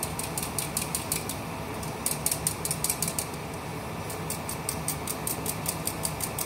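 A stainless-steel flour sieve being tapped rapidly by hand to sift gram flour through its mesh, about five light metallic taps a second, with a brief pause about halfway through. A steady low hum runs underneath.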